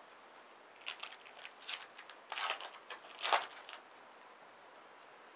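Foil trading-card pack wrapper being torn open and crinkled in the hands: a run of crackling rustles lasting about three seconds, loudest near the end of the run.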